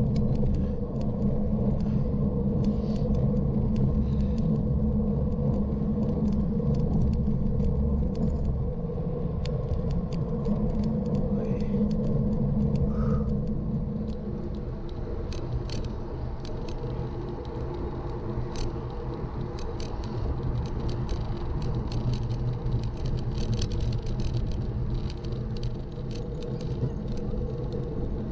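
Wind buffeting and road rumble on an action camera riding on a road bike at around 30 km/h, with small rattles and ticks from the camera mount over the tarmac. The low rumble eases a little about halfway through.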